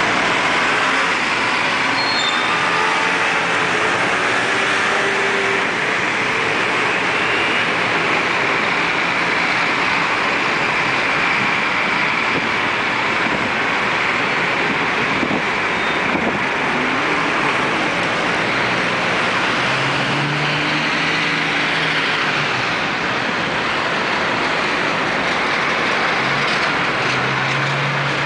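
Dense city street traffic: a steady wash of car, motor-scooter and bus engines and tyres. A heavier engine's low hum rises out of it briefly about two-thirds of the way through and again at the end.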